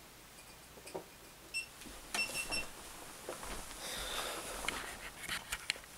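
Short high electronic beeps, a single one about one and a half seconds in and a quick run of them a second later, then rustling and scattered sharp clicks of something being handled.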